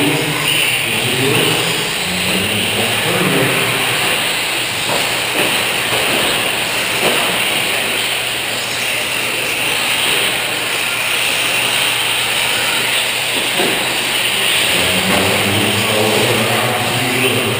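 Several radio-controlled 4WD short course trucks racing on a dirt track, a steady high whirring of their motors and drivetrains mixed with the hiss of tyres on the clay.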